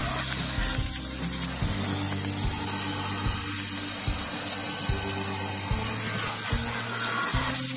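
Handheld electric stone cutter with a diamond blade wet-cutting a curve into a granite slab: a steady, gritty cutting hiss. Background music with a stepping bass line plays underneath.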